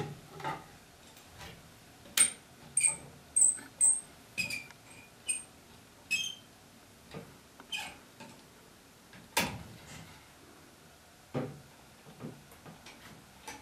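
A run of short, high squeaks as the dry-fitted wooden spindles of a Windsor chair are twisted in their tight holes with vise grips, bunched in the first half. A few sharp clicks follow, the loudest about nine and a half seconds in.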